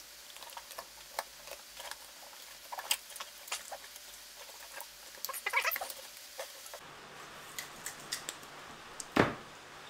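Filleting knife working a fillet off a Murray cod's frame: scattered light clicks and short squeaks as the blade crosses the rib bones. A falling whoosh near the end.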